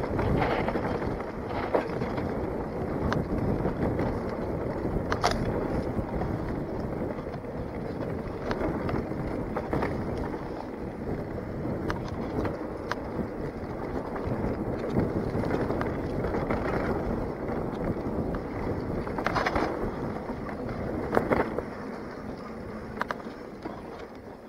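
Mountain bike running fast down a dirt singletrack: a steady, muffled rumble of tyres on dirt and the bike rattling, with sharp knocks over bumps, the clearest about 5, 19 and 21 seconds in.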